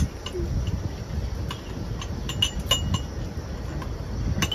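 Chopsticks clinking and tapping against porcelain bowls and plates as people eat: scattered light clinks, several in quick succession in the middle and two more near the end, over a low background rumble.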